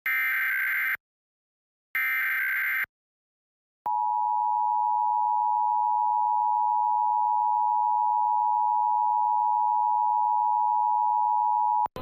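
Emergency Alert System test signal: two one-second bursts of high, screechy SAME header data tones a second apart, then the EAS two-tone attention signal, a steady pair of close pitches (853 and 960 Hz) held about eight seconds before cutting off sharply.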